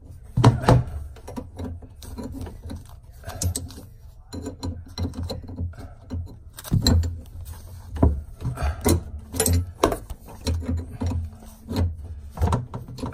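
Steel open-end wrench clicking and knocking against the nut joining a braided supply hose to a brass angle stop valve under a sink, as a stuck, overtight nut is worked loose. Irregular sharp clicks and knocks, with a cluster of them about nine seconds in.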